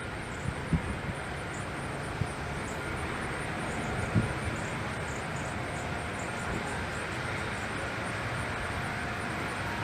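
Steady outdoor background noise, a low rumble and hiss with no siren tone, with a few brief low bumps in the first seconds.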